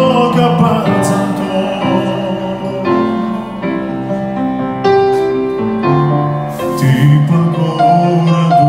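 A man singing a ballad into a microphone with piano accompaniment, the voice holding some long notes over the piano.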